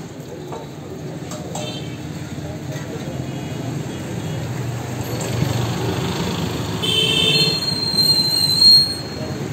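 Street traffic noise building up as a heavy vehicle passes, with brief high-pitched tones near the end.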